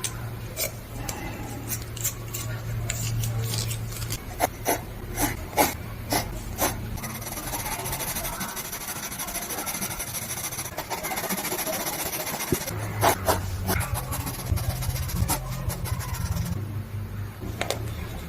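A drawing tool scratching and rubbing across paper in repeated strokes, with scattered sharp taps, over a low steady hum.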